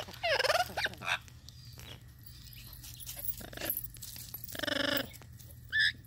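Yellow-naped Amazon parrot calling: a burst of wavering calls in the first second, one longer, louder call about four and a half seconds in, and a short rising call just before the end.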